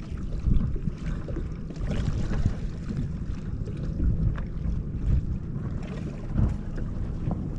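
Wind buffeting the microphone in a gusting low rumble, with choppy water lapping and knocking against a bass boat's hull.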